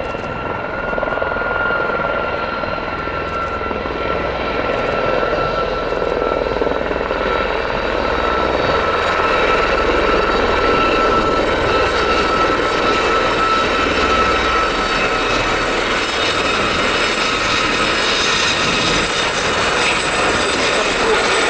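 A formation of four Westland Gazelle helicopters flying past. Their turbine and fenestron tail rotors make a high, steady whine over the rotor noise, and the sound grows louder over the first half as they come closer.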